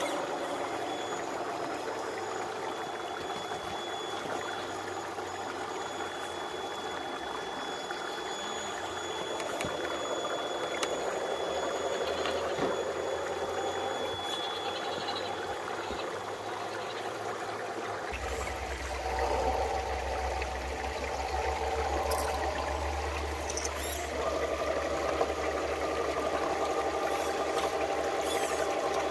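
Shallow creek water trickling over rocks, with the electric motors and gears of RC crawler trucks whining as they climb the rocks, rising and falling with the throttle.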